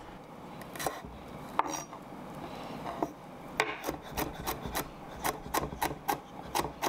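Chef's knife chopping jalapeño strips on a wooden cutting board. A few scattered knife taps come first, then from about three and a half seconds in a steady run of chops, about four a second.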